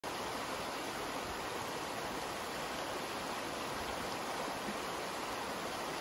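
Shallow creek running fast over a rocky bed, fed by a week of rain: a steady, even rush of flowing water.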